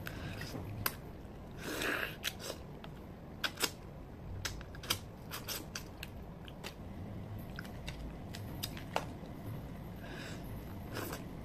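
Cooked crab shell cracking and snapping as legs and claws are broken apart by hand and eaten: many sharp, irregular clicks, with a couple of short stretches of sucking and chewing at the mouth.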